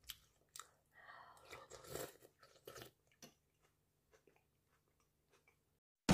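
Faint sounds of someone eating hot porridge: soft chewing and small clicks that die away after about three seconds.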